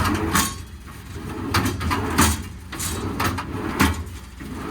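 Metal tool drawer in a truck service body being slid in and out, scraping with several sharp knocks as it goes. The drawer catches on one side and needs adjusting and lubricating.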